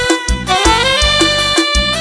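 Piseiro music, instrumental with no singing: a brassy lead melody with notes that slide up in pitch, over a steady kick-drum and bass beat.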